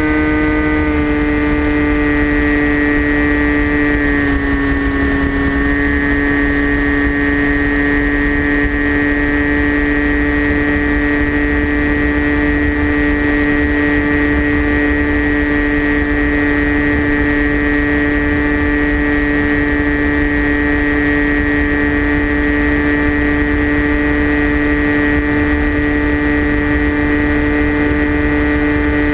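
Electric motor and propeller of a TBS Caipirinha FPV flying wing running at steady cruise throttle, a high even drone heard from the onboard camera with wind rumbling on the microphone. The pitch dips briefly about four seconds in, then holds steady.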